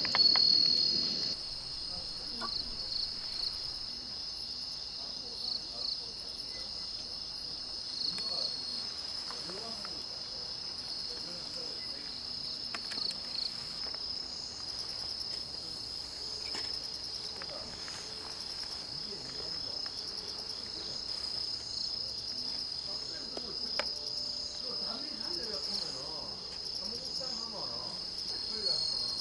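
Crickets chirring in a steady, high-pitched insect chorus, with a few faint clicks underneath.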